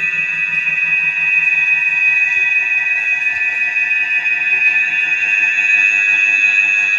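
A loud, steady, high-pitched electronic tone with several pitches sounding together, held without a break.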